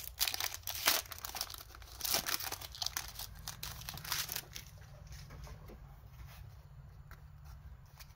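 Foil wrapper of a Pokémon XY Fates Collide booster pack being torn open and crinkled, a dense crackle for about the first four seconds. After that, fainter rustling as the cards are taken out and handled.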